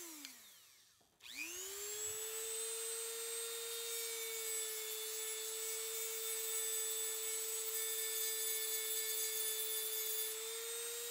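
Dremel rotary tool with a small sanding drum winding down to a stop, then switched back on about a second in and spinning up to a steady whine. It runs evenly while grinding a string notch into the end of an oak dowel.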